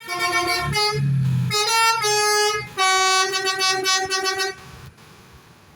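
A Basuri bus's telolet horn, a multi-note musical air horn, playing a short tune. It sounds four or five notes that step up and down in pitch, the last held longest, then stops about four and a half seconds in.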